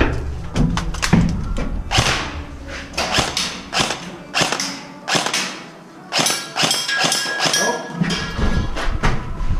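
Airsoft rifle firing a string of shots in quick, irregular succession, with sharp knocks that include BBs striking targets. Some of the hits ring briefly in the second half.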